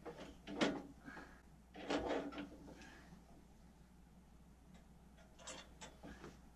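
A few scattered metal knocks and clunks, the loudest about half a second and two seconds in and fainter ones near the end, as parts are handled and fitted on a walk-behind garden tiller.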